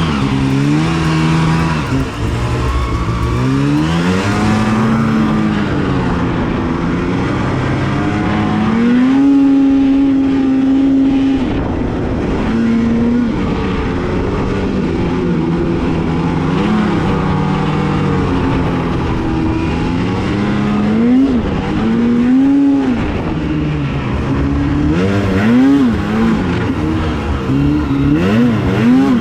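Two-stroke snowmobile engine revving up and down as the sled rides. The revs are held high for about two seconds partway through, with quick throttle blips near the end.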